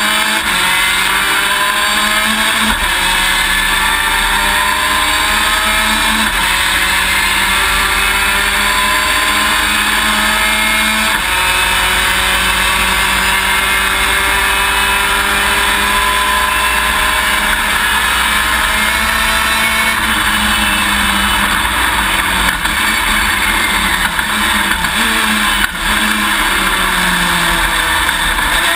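V6 race car engine heard from inside the cockpit at racing speed, its pitch climbing through the gears with upshifts breaking the rise, a long slow climb in the middle, then falling about twenty seconds in as it shifts down. Heavy wind and road noise run under it.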